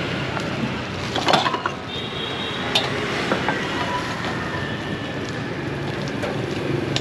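Steady street background noise with a few sharp knocks and clatters of serving at a food stall: a cluster about a second in, then single knocks.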